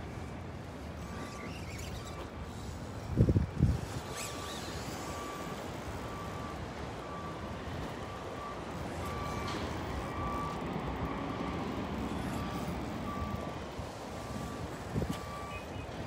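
A reversing alarm on heavy equipment beeping steadily, a little over once a second. Under it is a steady low background rumble, with two brief loud thumps about three seconds in.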